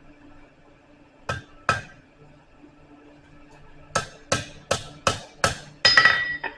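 Blacksmith's hammer striking a steel bar on an anvil to curl a scroll: two blows, a pause, then a quicker run of five blows and a last one that rings on.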